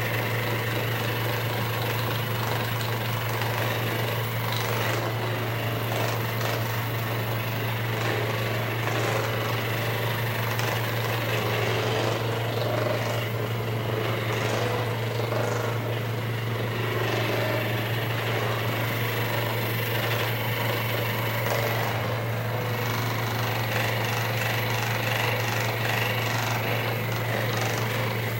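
Electric percussion massager running steadily, a continuous low buzzing hum with no breaks.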